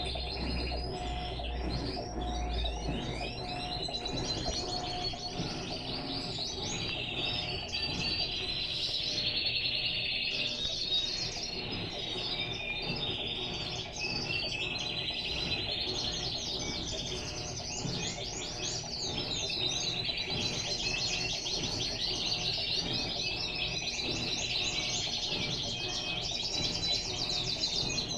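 Many small birds chirping and trilling without pause. Beneath them is a low steady hum from the Electrolux LTE12 washing machine as it begins to drain.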